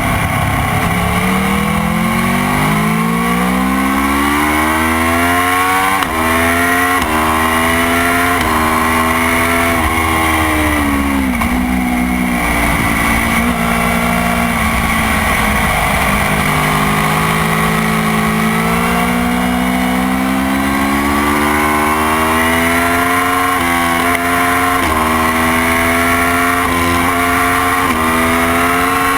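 Motorcycle engine pulling hard up through the gears, its pitch climbing and dropping back at each upshift. About ten seconds in it falls away, with quick rises as it shifts down, then picks up again and climbs through several more upshifts near the end.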